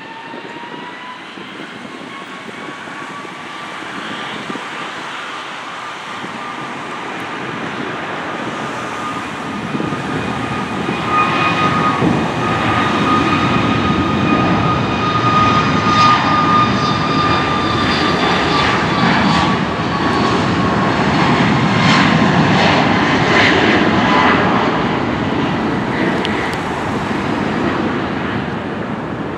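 Boeing 737 MAX 8's CFM LEAP-1B jet engines spooling up to takeoff power: a whine rising in pitch at the start, then a loud steady jet roar with high whining tones that builds as the airliner rolls, easing a little near the end.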